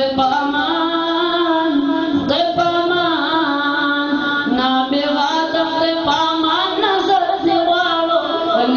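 A solo voice singing a chant-like devotional song with no instruments, in long held notes with ornamented turns. It starts abruptly.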